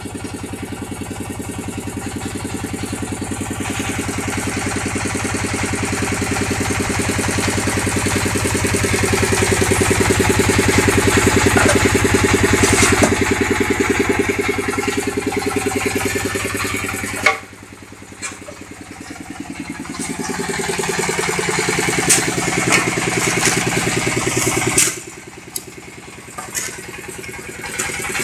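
Concrete-block (batako) press running on its electric vibrator motor: a steady, fast-pulsing machine hum. It cuts off suddenly about two-thirds of the way in and winds back up with a rising pitch. It stops again near the end, where a few knocks are heard.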